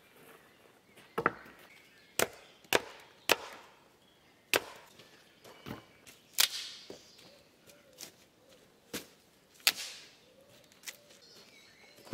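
Sharp wooden chops and knocks, about a dozen single blows at uneven spacing, some with a brief ringing after them.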